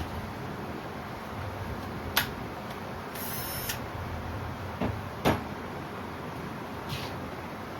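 Parts and bolts being handled on a workbench: a few sharp clicks and knocks, about four over several seconds, with a brief high scraping sound about three seconds in.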